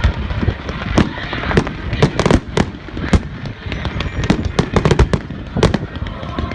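Close-range fireworks display: a rapid, irregular run of sharp bangs, several a second, over continuous crackling.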